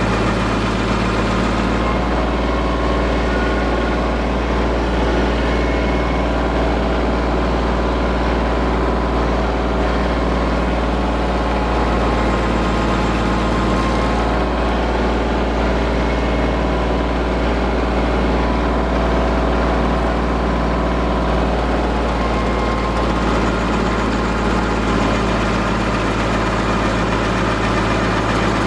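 Compact tractor engine running steadily under load, driving a PTO-powered WG24 stump grinder whose spinning 24-inch flywheel is chewing into a cedar stump.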